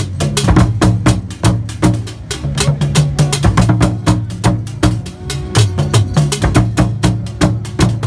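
Fontomfrom ensemble: large Akan drums struck with curved wooden sticks, playing a fast, dense rhythm of many sharp strokes a second over deep drum tones.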